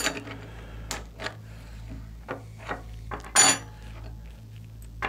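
Steel combination wrenches clicking and tapping against a suppressor's mount as it is worked loose, several separate light clinks. About three and a half seconds in, one wrench is set down on the wooden bench with a louder, briefly ringing clank.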